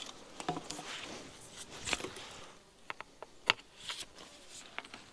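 Faint handling noise as a feeder rod is turned over in the hands: light rustling with a few sharp clicks, the loudest about three and a half seconds in.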